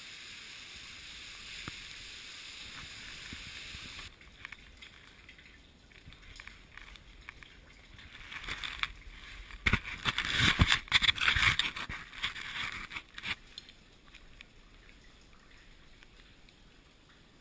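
Steady rush of water running in a cave that cuts off abruptly about four seconds in. Then, in the middle, a few seconds of sloshing, splashing and knocks from someone moving through a shallow muddy pool, dying away near the end.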